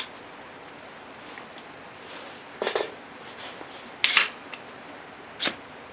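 Three separate metallic clacks, about a second and a half apart, from a 9mm pistol-caliber carbine being worked by hand to clear a round that did not feed all the way.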